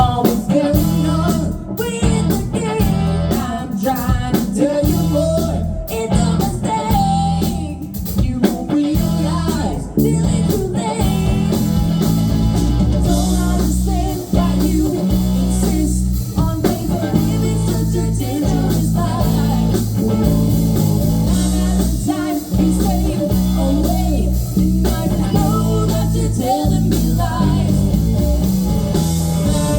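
Live blues-rock band playing an instrumental intro: electric guitar over bass and drums, choppy at first and settling into a fuller, steadier groove about twelve seconds in.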